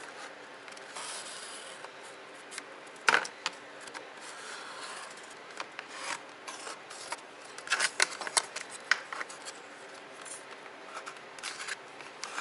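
Marker pen scratching along a paper template as it is traced around a plastic console bracket, with scattered clicks and knocks as the bracket is handled; one sharp knock about three seconds in.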